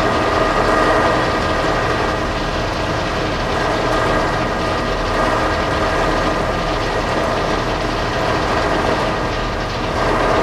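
Combine harvester running steadily while harvesting corn: an even mechanical drone with a steady whine on top.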